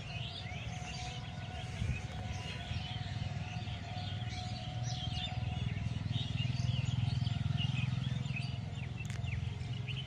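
Many small birds chirping and twittering in quick, overlapping calls, over a steady low hum.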